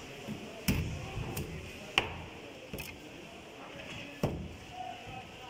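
Knife chopping through tuna sections on a plastic cutting board: about five sharp knocks, unevenly spaced, the loudest about two seconds in.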